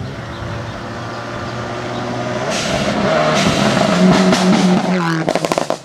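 Subaru rally car's flat-four engine at full speed on a gravel stage, growing louder as the car approaches. About five seconds in the engine note drops, and a quick run of sharp cracks follows as the car goes by.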